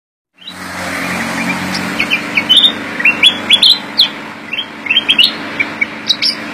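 Caged black-crested bulbul calling in a quick run of short, sharp rising notes, over a steady background hum.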